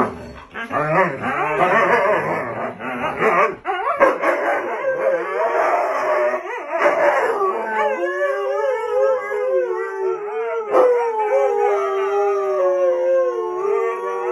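Siberian huskies vocalizing: first a fast, excited jumble of yips and yowls, then from about eight seconds in two huskies howling together in long, overlapping, wavering howls.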